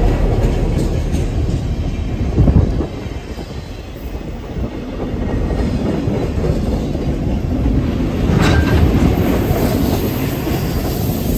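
Rail flatcars of a diesel-hauled work train rolling past close by, wheels clacking over rail joints and squealing, with a sharp bang about two and a half seconds in and more clanks later. The rumble builds again near the end as the trailing diesel locomotive approaches.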